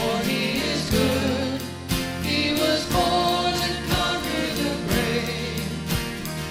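Worship band music with sustained chords and a steady beat, a drum hit about once a second.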